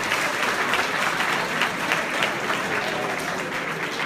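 Audience applauding: dense, fast clapping from many hands.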